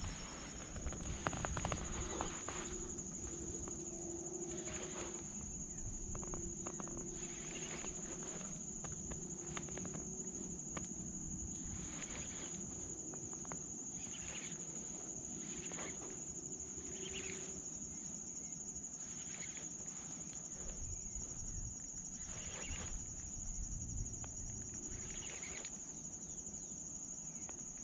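Insects trilling steadily at a high pitch, with short rustling sounds every second or two.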